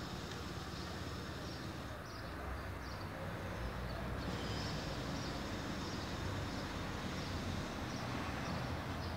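Steady low background rumble of distant city traffic, with faint, high, short chirps of small birds over it.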